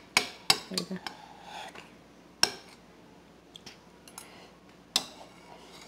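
Metal spoon clinking against a ceramic soup bowl: a few sharp, separate clinks, two close together at the start, one about two and a half seconds in and another near the end, with fainter taps between.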